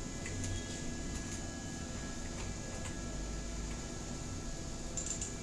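Quiet room tone, a steady low hum and hiss, with a few faint computer mouse clicks.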